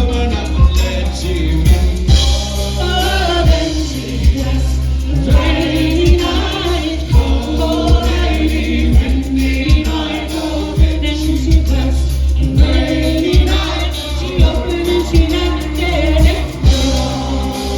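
Folk band playing live, with several voices singing together over heavy bass and a steady drum beat.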